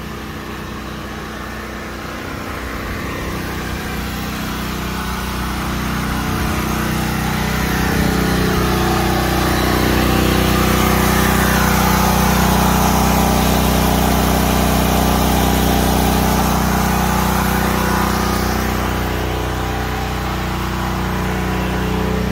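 Predator 9000 portable generator's single-cylinder gasoline engine running steadily under load while it powers the house and its 3.5-ton central air conditioner. It grows louder over the first several seconds, is loudest in the middle, and fades again toward the end.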